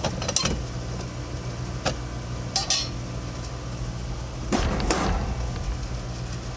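Metallic clinks and knocks of tools and metal parts being handled during work on an AC condenser, a few separate strikes with a louder cluster about two thirds of the way through, over a steady low hum.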